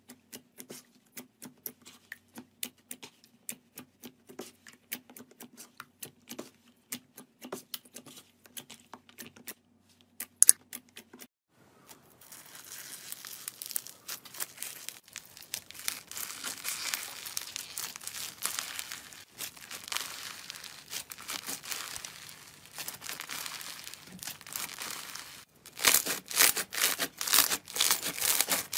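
Hands pressing and kneading glossy clear slime, making sparse sticky clicks and pops. About a third of the way in it changes to foam-bead slime (floam) being squeezed and stretched, a dense crackling crunch of the beads, loudest in several bursts near the end.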